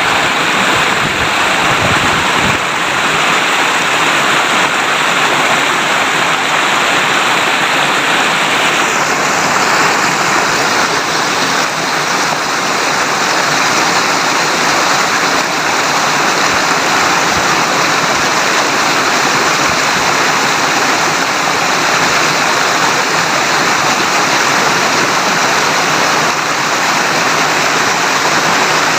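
River water babbling as it flows, a loud, steady rush of water; the hiss gets a little duller about nine seconds in.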